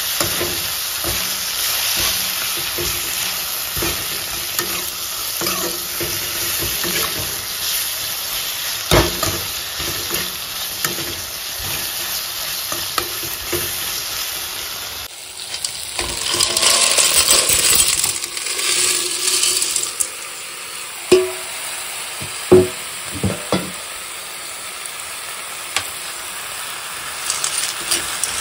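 Sliced vegetables sizzling in hot oil in a metal wok while a steel ladle stirs and scrapes through them. About halfway there is a break, then a stretch of louder sizzling and a few sharp metallic clinks.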